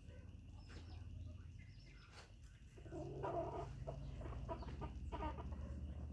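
Chickens clucking, quietly at first and louder from about three seconds in.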